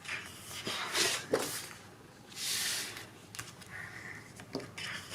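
Scrapbook paper and embellishment packs being handled: a few short rustles and swishes, the longest about two and a half seconds in, with light taps and clicks between them.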